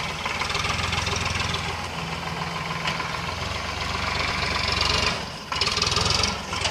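Sonalika tractor's diesel engine running steadily under load as it drags a rear blade through loose soil, with a brief dip in loudness just after five seconds.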